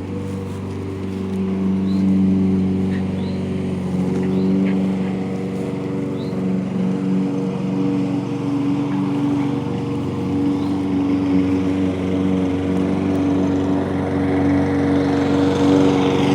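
A motor running steadily at an even pitch, with a few faint short high chirps over it.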